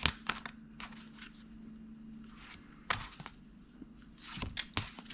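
Tarot cards being handled and flipped through: scattered soft clicks and rustles of card stock, in clusters near the start, about three seconds in and about four and a half seconds in.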